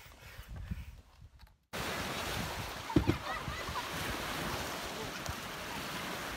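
Small waves washing onto a lake beach with wind buffeting the microphone, starting abruptly a little under two seconds in after a brief quieter stretch. A single sharp thump about three seconds in.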